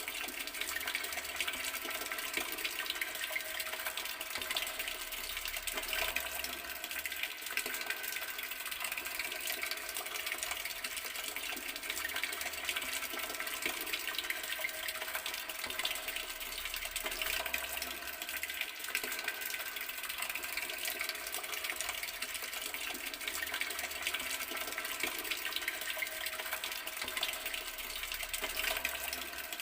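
Water running steadily from an outdoor garden tap, an even rushing stream.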